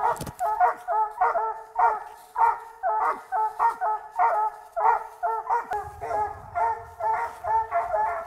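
Squirrel dog barking steadily at a tree, two to three barks a second: treed barking, the sign that it has a squirrel treed.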